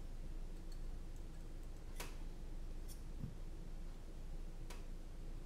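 A few faint clicks and a soft knock as a small hex screwdriver drives a screw into a carbon-fibre drone frame on a silicone mat, over a low steady hum.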